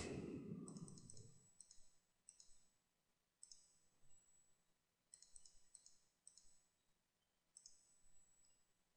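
Faint computer mouse clicks, scattered about once a second and often in quick pairs, over near silence.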